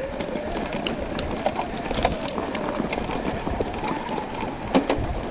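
Electric mountain bike riding down a rough trail: tyre noise on dirt and stones with frequent sharp knocks and rattles, the loudest near the end, over a steady whine that wavers slightly in pitch.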